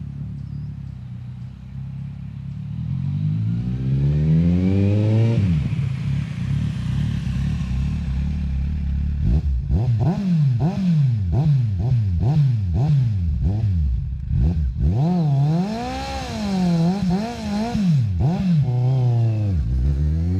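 2007 Kawasaki Z1000's inline-four engine through aftermarket Danmoto Carbon GP slip-on mufflers, idling deep and then revved: one long rev about three seconds in, then a run of quick throttle blips, a couple of slower swells and a few more blips before it settles back to idle near the end.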